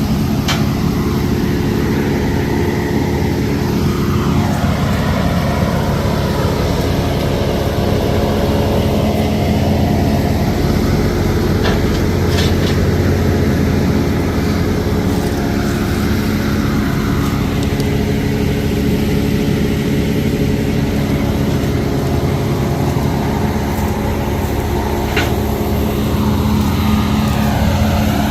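A large engine running steadily at a constant speed, with a few short knocks over it.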